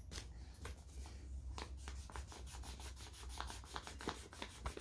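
Felt-tip marker colouring on paper: quick, quiet back-and-forth scribbling strokes, several a second, getting denser after the first second or so.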